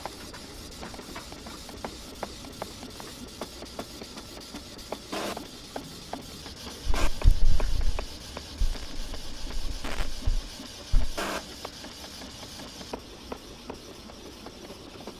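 Canon Pixma inkjet printer printing a sheet of screen-printing transparency film: the print head works across the sheet over a steady hiss with many fine ticks and several brief swishes. A few low bumps come between about seven and eleven seconds in and are the loudest part.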